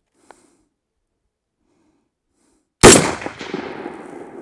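A single shot from an ADM UIC-10A .308 rifle about three seconds in: a sharp crack followed by an echo that fades out over more than a second.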